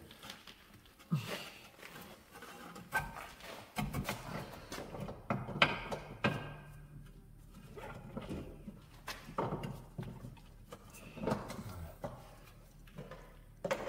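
Scattered knocks and clinks of metal parts being handled while working on a car's wheel hub and suspension.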